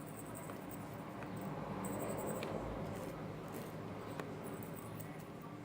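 Faint light clicks and short rattles of small star-shaped slime decorations being shaken out and sprinkled by hand.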